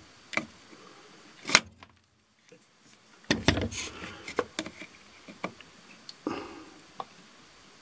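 Scattered light clicks and taps of a tweezer soldering iron's tips working against a circuit board and its surface-mount parts, with one sharper click about one and a half seconds in.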